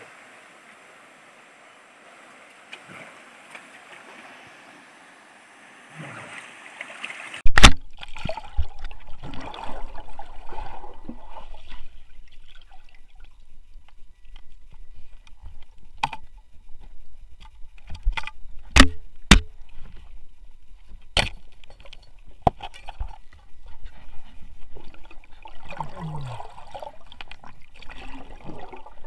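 Water sloshing and trickling, with scattered sharp knocks and clicks. For the first seven seconds or so there is a steady rushing hiss instead, which changes abruptly to the sloshing and knocks.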